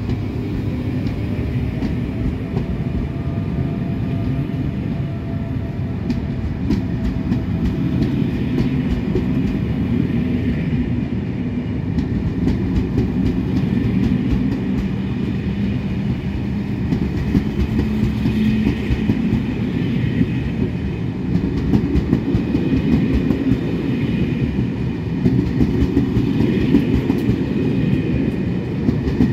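SNCF Corail passenger coaches of an Intercités train rolling past along the platform with a steady rumble, the wheels clicking over the rail joints at irregular intervals.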